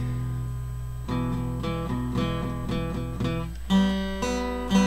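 Acoustic guitar played on its own. A chord rings and fades, then about a second in comes a run of picked notes and light strums, with fuller strums near the end.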